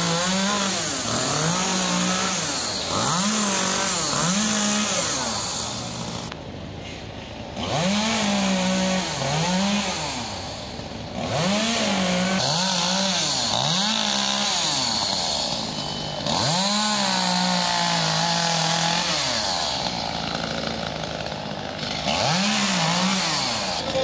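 Chainsaw cutting up fallen tree branches, its engine revving up and falling back about once a second, with a couple of short pauses.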